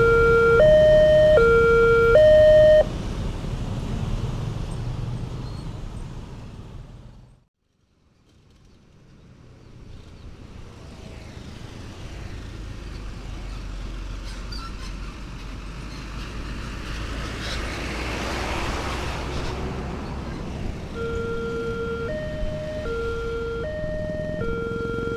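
Railway level-crossing gate siren sounding a two-note hi-lo wail, changing note about every two-thirds of a second; it cuts off about three seconds in. After a short break, a rushing noise builds to a peak and eases off, and the two-note siren starts again near the end.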